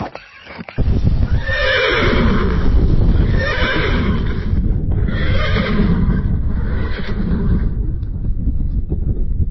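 Horse whinnying twice, each call long with a falling pitch, over a steady low rumble that starts suddenly about a second in.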